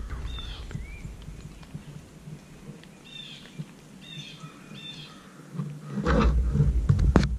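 A wild animal calls several times in short, high notes, some falling in pitch, in the first five seconds. From about six seconds in, louder rustling with a few sharp knocks takes over.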